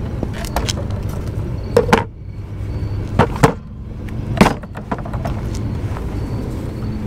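Plastic power-tool battery packs being set down on a mosaic-tile tabletop: several short, sharp clacks over the first four and a half seconds, over a steady low hum.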